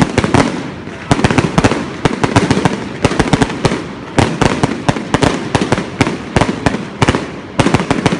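Fireworks going off at close range in rapid volleys of sharp bangs and crackles, several a second, with brief lulls about a second in and near the four-second mark.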